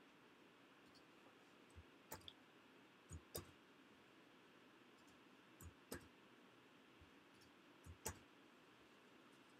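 Faint computer mouse clicks: about four pairs of short, sharp clicks, a second or two apart, over near-silent room tone.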